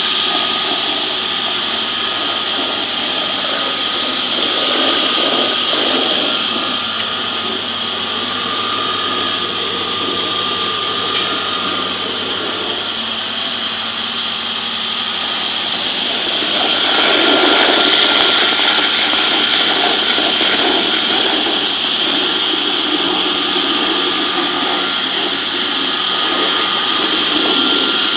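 Electric chili sauce and peanut butter grinding machine running under load as food material is fed in, a steady high whine from the machine. About 17 seconds in it grows louder and rougher.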